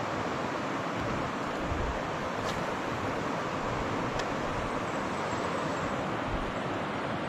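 Steady rush of river water around a kayak with wind buffeting the microphone, and a couple of faint clicks.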